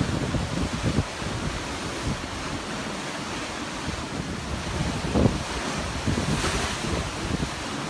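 Sea waves washing on the shore with wind buffeting the microphone; a wave's hiss swells up about six seconds in.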